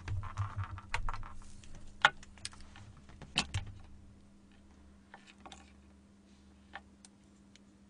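Scattered clicks, taps and light rustling of things being handled at a table, busiest in the first half with two sharper clicks, then only a few faint ticks. A steady low hum runs underneath.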